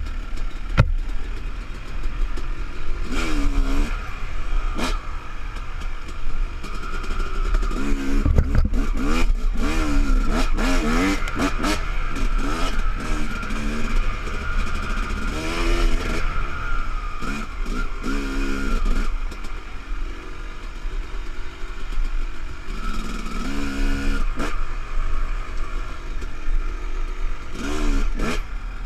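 Yamaha YZ250 two-stroke dirt bike engine revving up and down with constant throttle changes while riding a bumpy trail, with scattered knocks and rattles from the bike over the ground.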